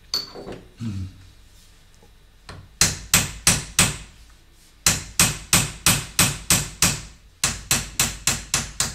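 Chasing hammer tapping a curved steel repoussé punch (baquetón) against a silver plate to raise the relief, in quick even runs of about four strikes a second with short pauses between runs.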